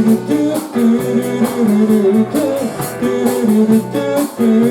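Live rock band playing an instrumental passage between sung lines: guitar over bass and drums keeping a steady beat.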